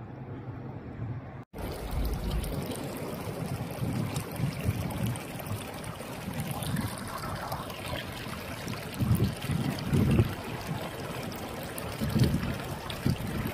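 Muddy floodwater rushing and splashing over stones in a steady wash, with low rumbles of wind buffeting the microphone now and then.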